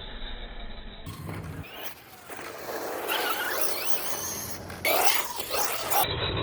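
1/8-scale RC truggy driving hard on a dirt track, its motor whining and rising and falling in pitch. The sound grows louder about five seconds in.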